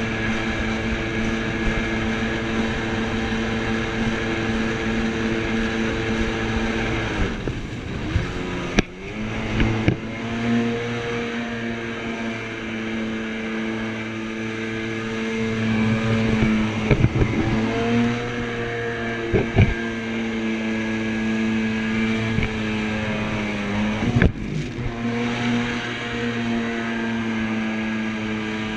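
A jet ski's engine running at speed with a steady drone, easing off and dropping in pitch a few times, then climbing back. A few sharp thuds come through while it is easing off.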